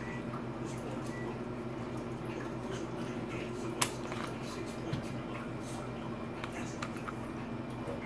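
Smith & Wesson SD9 VE pistol handled in the hands: faint scrapes and small taps, with one sharp click about four seconds in, over a steady low hum.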